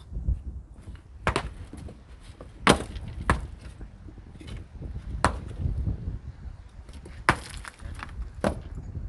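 Sharp, irregular clacks of stone knocking on stone as masons set rock into gabion walls, about six strikes with the loudest near three seconds in, over a low rumble of wind on the microphone.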